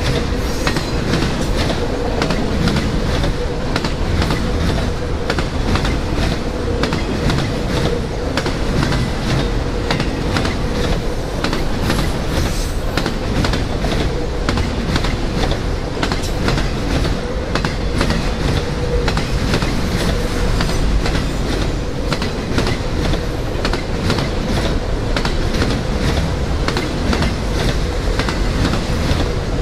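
Autorack cars of a CSX freight train rolling past at steady speed: a continuous clatter of steel wheels clicking over the rails, with a steady ringing tone underneath.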